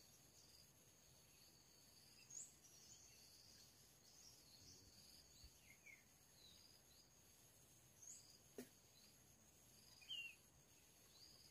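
Faint natural ambience: a steady high insect drone with short bird chirps a few times.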